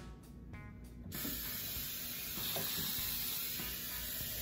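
Salted water-and-vinegar brine poured from a glass measuring cup onto raw chicken pieces in a pot: a steady pouring splash that starts about a second in.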